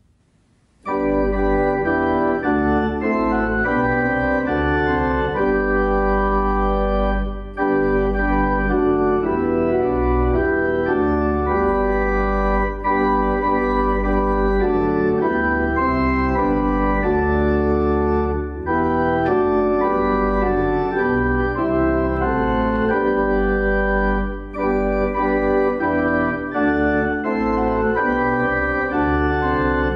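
Church organ playing a hymn in full sustained chords over a deep bass line, starting about a second in, with short breaks between phrases.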